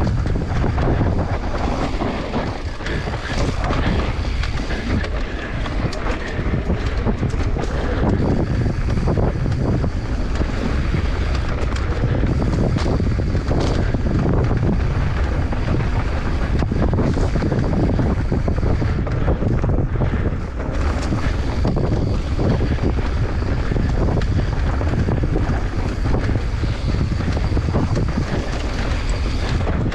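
Mountain bike descending a dry, dusty dirt trail at speed: wind buffeting the microphone over the tyres running on loose dirt, with frequent knocks and rattles from the bike over bumps.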